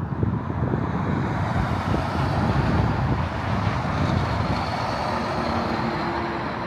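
Road traffic passing close by on a multi-lane road: cars and a semi-truck driving past with a continuous tyre-and-engine rumble. A faint steady engine drone joins in the second half as the truck goes by.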